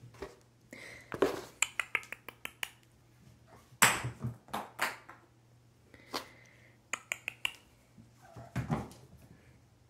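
Kittens pouncing and scrabbling after tossed toys on a hard floor: irregular quick taps, clicks and clatters of paws and small toys landing and skittering, with a louder knock about four seconds in.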